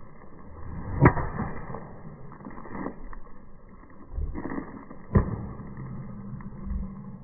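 Golf driver striking a ball off a rooftop tee: a sharp crack about a second in, and a second sharp crack about four seconds later, over faint low rumbling.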